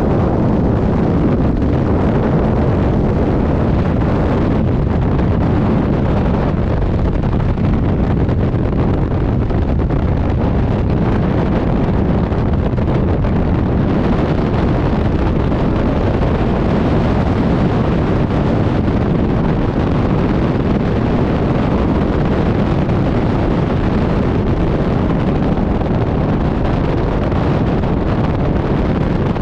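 Freefall airstream blasting over the camera's microphone: a loud, steady rush of wind noise with no letup.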